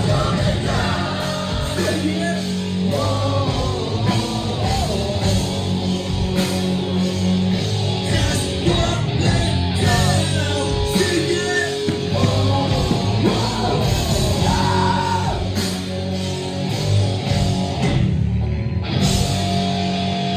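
Live rock band playing loud, a vocalist singing over electric guitars and drums. The high end drops away for about a second near the end before the band comes back in.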